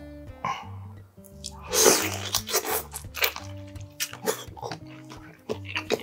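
Close-miked eating of soy-marinated raw crab: a loud wet burst about two seconds in, then a run of short chewing clicks and mouth smacks, over background music.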